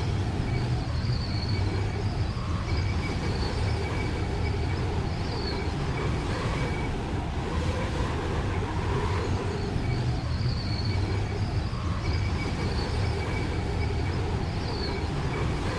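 Steady low rumble of a running vehicle, with a faint high whine that comes and goes.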